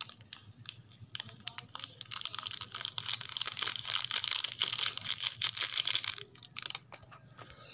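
Foil seasoning sachet from Lucky Me instant noodles crinkling as it is squeezed and shaken to empty the powder onto the noodles. A dense run of crinkles and small ticks, busiest in the middle few seconds.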